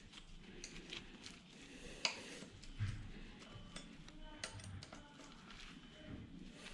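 Faint, irregular clicks and light metallic taps from hand tools, such as an Allen key, working on the mounting bolts of an e-bike's rear shock while the old shock is being taken off.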